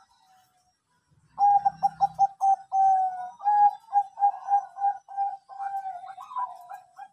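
Bangkok-type zebra dove (perkutut) cooing. After about a second of quiet comes a long run of quick, clipped coo notes that carries on to the end.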